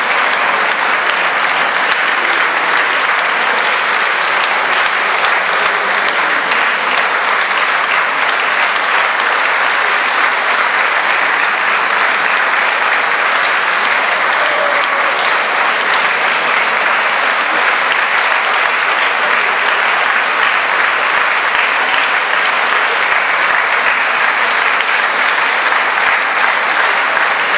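Large audience applauding steadily and without a break.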